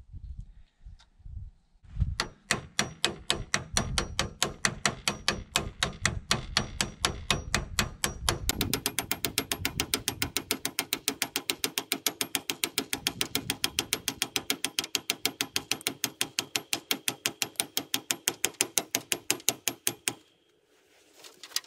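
Hammer striking steel in a fast, steady run of sharp blows, about five a second, quickening a little about eight seconds in and stopping near the end, as a new bearing is tapped onto the hay elevator's shaft.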